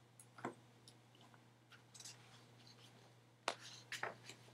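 Near silence: a faint steady hum of room tone with a few faint clicks, one about half a second in and a small cluster near the end.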